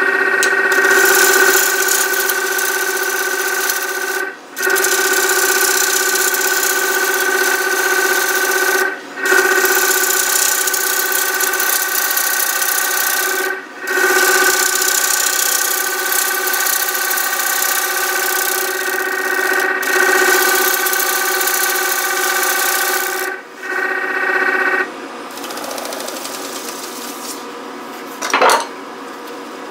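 A gouge hogging out the face of a large basswood platter spinning on a wood lathe: a loud continuous shearing cut with a steady whine. It breaks off briefly four times as the tool is lifted, and stops about 25 seconds in, leaving the quieter sound of the lathe turning.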